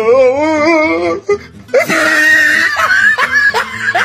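Siberian husky 'talking': a wavering, howl-like call for about the first second, then after a short break a longer string of rising and falling vocal calls.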